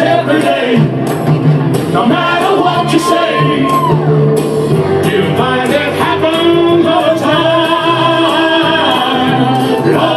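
Karaoke: a man and a woman singing into microphones over a loud backing track with a steady beat, one long note held near the middle.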